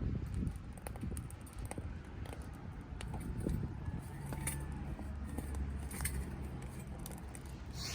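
Softwood firewood crackling in a small wood-burning camp stove, with scattered sharp pops and clicks over a low rumble.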